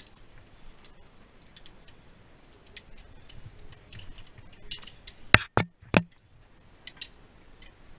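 Handling noise of rope access gear: scattered light clicks of carabiners and hardware. Three louder sharp knocks come close together about five and a half seconds in.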